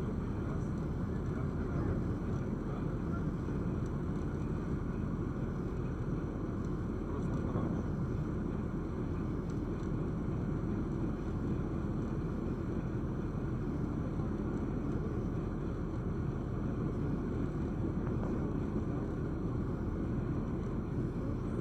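Ferry engine running with a steady low drone.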